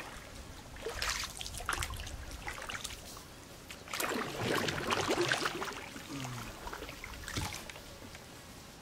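Paddle strokes in river water from a small boat: irregular splashes and trickling as the blade dips, pulls and lifts out, the biggest splashing about four to five and a half seconds in.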